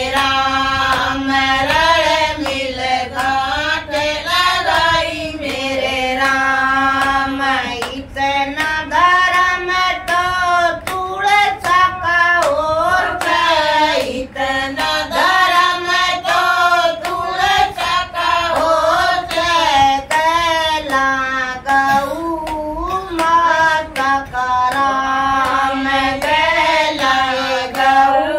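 A group of women singing a Hindi devotional bhajan together without instruments, keeping time with steady hand claps.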